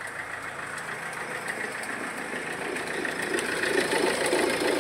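Mahindra XUV500 engine idling with a heavy rattling, vibrating 'ghar-ghar' noise from the accessory belt drive, growing steadily louder. The noise comes from a belt tensioner broken in two and a torn drive belt.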